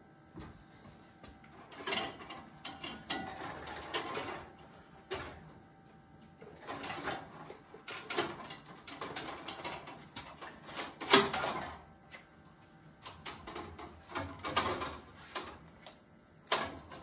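Irregular clicks, knocks and rattles of hands working among metal parts in a car's engine bay, with one sharp clunk about eleven seconds in.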